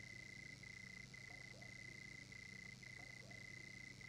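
Faint night chorus of frogs: a high trill pulsing about twice a second, with low croaks underneath.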